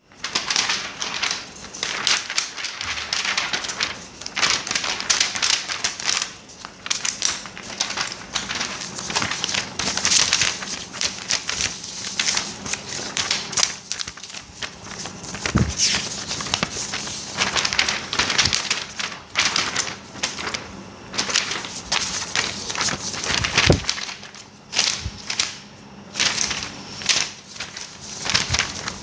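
Paper being handled and rustled, with crisp irregular crackles and crinkles.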